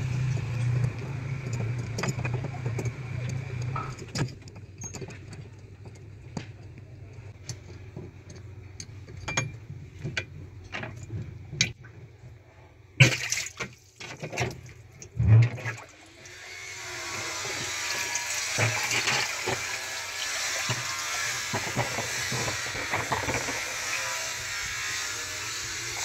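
A steady low hum for the first few seconds, then scattered clicks and knocks as a wrench undoes the pulsator nut and the plastic pulsator is worked off the drum of a top-loading washing machine. About two-thirds of the way in, a steady rush of water starts and runs on.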